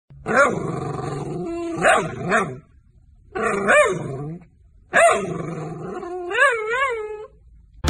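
Long-haired dachshund vocalizing as if talking: whining, howl-like sounds that rise and fall in pitch, in three stretches with short pauses, the last ending in a quick wavering warble.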